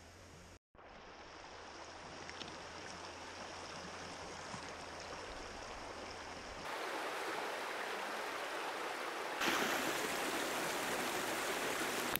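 Shallow stream running over stones, an even rush of water that gets louder in two sudden steps, about seven and nine and a half seconds in.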